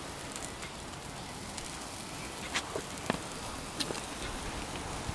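Steak sizzling on a metal grill grate over glowing coals in a firebox: a steady hiss with a few sharp crackles and pops about halfway through.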